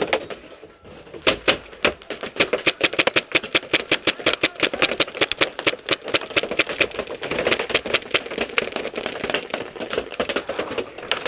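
Heavy paintball fire at close range: a dense, uneven string of sharp pops from paintball markers, with balls breaking against the helmet camera and the tower, starting about a second in.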